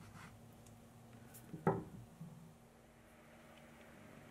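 A faint last stroke of a hand file on a small plastic bushing, then a single short knock about a second and a half in as the file is laid down on the paper-covered table; otherwise quiet handling.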